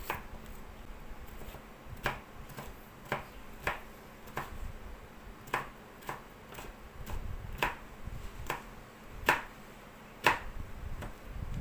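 Knife cutting a white gourd (bottle gourd) into strips on a plastic cutting board: a dozen or so sharp taps of the blade striking the board at an uneven pace, about one a second.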